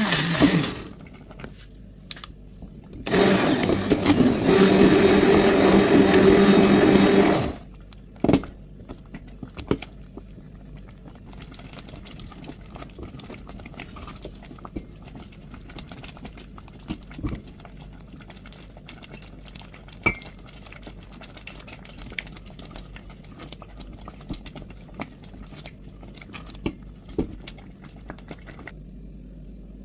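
Stick blender puréeing soup in a metal pot, running steadily in two bursts: briefly at the start, then again for about four seconds. After it stops, quiet scraping and light knocks of a spatula stirring in the pot.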